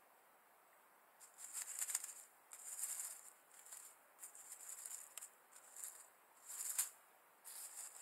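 Dry reed nest material rustling and crackling in short, irregular bursts as a common crane works its bill around the eggs in its nest. The rustling starts about a second in.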